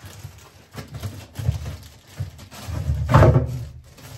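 Irregular knocks and rustling as a 5-gallon plastic pail lined with a heavy garbage bag is worked down into a cast-concrete composting toilet base, the loudest knock about three seconds in.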